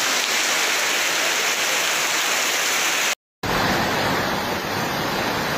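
Heavy rain pouring down in a steady hiss. About three seconds in the sound cuts out for a moment, then a second downpour follows with more low rumble in it.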